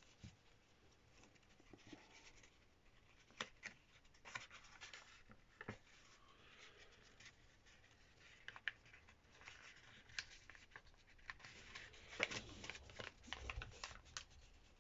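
Faint rustling and crinkling of a sheet of paper being folded and creased by hand, with scattered sharp crackles that come thickest near the end.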